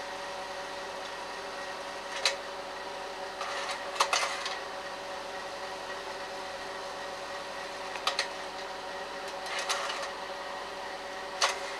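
Slide projector running with a steady fan-motor hum, its slide-changing mechanism clacking about five times as slides are advanced.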